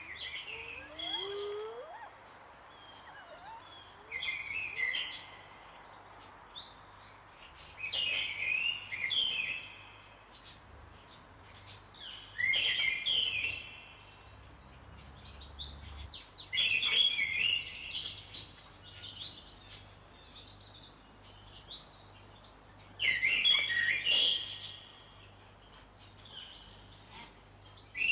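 Birdsong: short bursts of high chirping phrases that come back every four or five seconds, over a faint steady background hiss.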